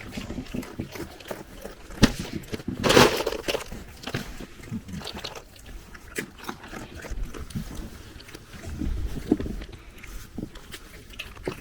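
Goats chewing and crunching peanuts: scattered small crunches and clicks, with a short rushing noise about three seconds in.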